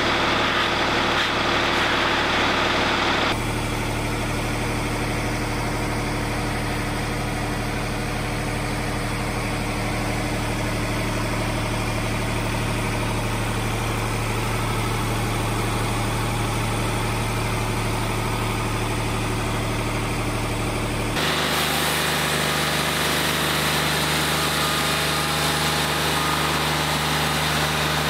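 Wood-Mizer LT40 Wide hydraulic sawmill's engine running steadily at idle. Its sound changes abruptly twice, about three seconds in and again about three-quarters of the way through.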